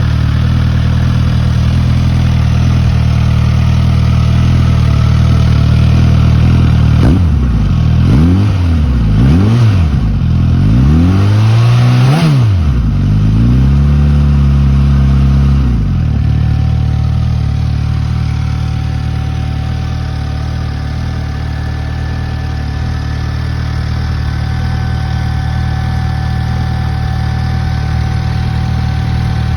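2021 Suzuki GSX-S1000's inline-four engine on its stock exhaust, idling steadily, then blipped four times with rising and falling revs about 7 to 12 seconds in. It is held at raised revs for a couple of seconds, then drops back to idle.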